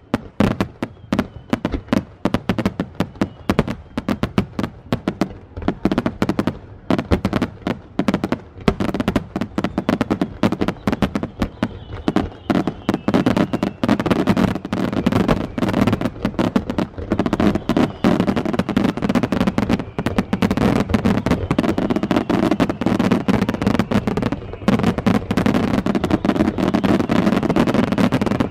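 Aerial fireworks shells bursting overhead in a dense, rapid barrage of bangs and crackles, growing denser about halfway through.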